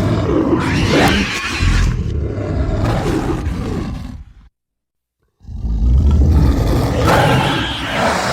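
Kothoga monster sound effects: deep, growling creature roars that rise and fall in pitch. The first fades out about four seconds in, and after about a second of dead silence a second loud roar starts abruptly.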